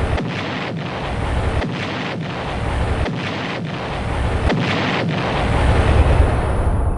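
Cartoon explosion sound effect: a long, continuous blast with a heavy low rumble, broken by brief dips like a chain of detonations, swelling to its loudest near the end.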